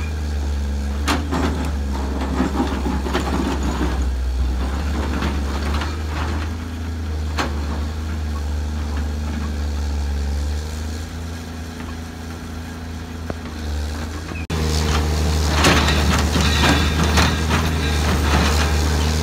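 Samsung SE350LC-2 hydraulic excavator, fitted with a big replacement diesel engine, running steadily under load as it digs rock and loads a dump truck, with a few sharp clanks of bucket and rock. About three-quarters through the sound breaks off abruptly and comes back louder, with more clatter of the bucket in the rock.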